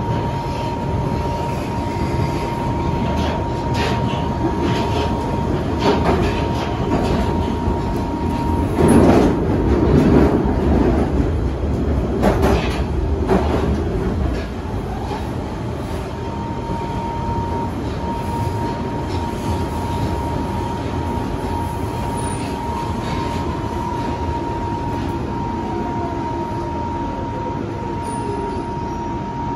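Inside a London Underground Central line train: a steady rumble of the car on the rails under a constant high whine. Louder clattering rushes come about nine and twelve seconds in. The train then slows into a station and stands quieter, with the whine going on.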